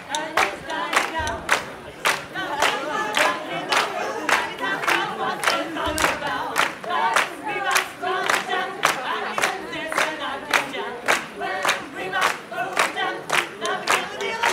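A crowd of people singing together unaccompanied while clapping a steady beat in unison.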